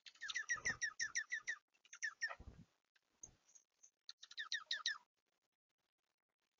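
A small bird giving quick runs of sharp, downward-sweeping chirps, about six to seven a second, in two bouts with a pause between. Two short low rumbles come under the first bout.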